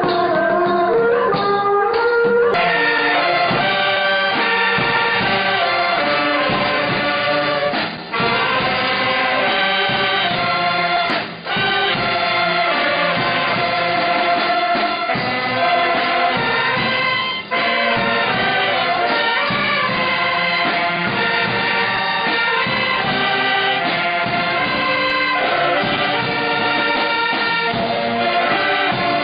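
A brass band with a row of saxophones playing a tune. It cuts in abruptly about two seconds in over different music, and drops out briefly a few times.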